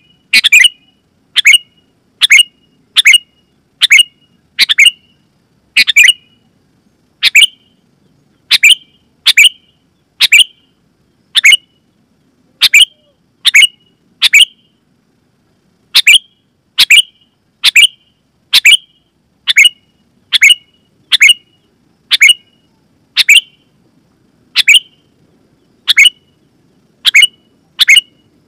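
Sooty-headed bulbul (kutilang) calling loudly: short, sharp chirping notes repeated about once a second, with a few brief pauses.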